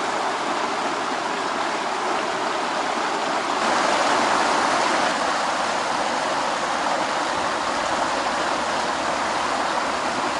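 Stream water rushing steadily, louder for a second or so about four seconds in.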